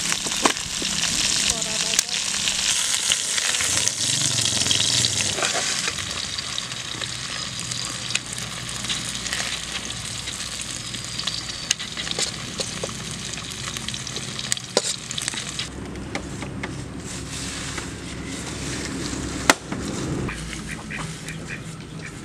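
Fish steaks sizzling as they fry in oil in a steel wok, with a metal spatula clicking and scraping against the pan now and then. The sizzle is loudest for the first several seconds and thins out later, leaving separate sharp clicks.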